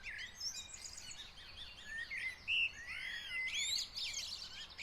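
Several songbirds singing at once: a dense mix of short chirps and quick rising and falling whistles, overlapping throughout.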